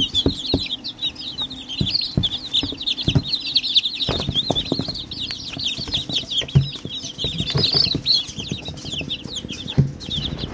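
A brood of day-old domestic chicks peeping all together, a dense, unbroken chorus of short high chirps, with scattered soft knocks and taps underneath.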